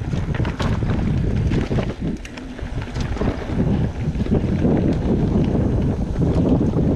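Wind buffeting the microphone over the rumble of a mountain bike riding a dirt trail, with frequent short rattles and knocks from the bike over bumps.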